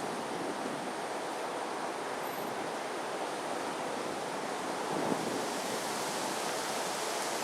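Gusty wind rushing steadily over the microphone, swelling slightly about five seconds in.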